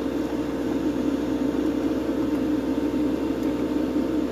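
Extractor fan running, a steady whooshing hum with a faint constant tone in it.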